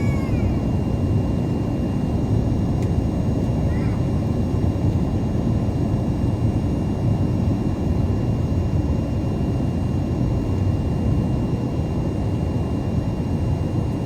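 Steady airliner cabin noise of a Boeing 787-9 on approach to land: a dense low rumble of engines and airflow with a faint steady high tone. Two short high-pitched squeaks come near the start and about four seconds in.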